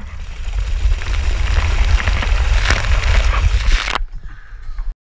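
Wind buffeting the microphone of a camera riding down a wet inflatable water slide, with the hiss and rumble of water and the rider sliding on the wet vinyl, growing stronger as it speeds up. It cuts off sharply about four seconds in, leaving a duller, quieter rush, then silence just before the end.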